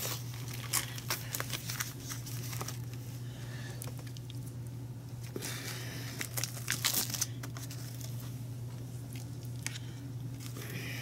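Plastic meat packaging crinkling and tearing in short rustles as raw pork chops are taken out and laid into a slow cooker, over a low steady hum.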